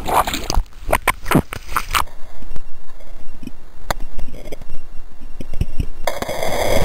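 Water splashing and bubbling around a camera plunged underwater: a quick run of splashy pulses, then a muffled stretch with a few sharp knocks, and a bright rush of water noise near the end.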